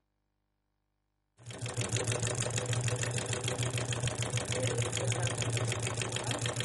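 Old black sewing machine stitching at a steady speed for machine embroidery: a fast, even clatter of needle strokes over a low hum. It starts about a second and a half in, after near silence.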